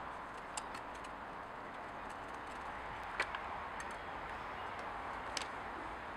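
A few sharp metallic clicks and taps as a screwdriver and small parts are worked on the opened clutch side of a Stihl 020 chainsaw, the loudest about three seconds in, over a steady background hiss.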